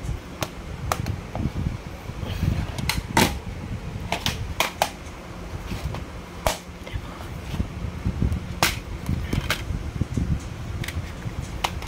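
Plastic DVD cases being handled, opened and closed: a string of sharp clicks and snaps at irregular intervals over low rubbing and handling noise.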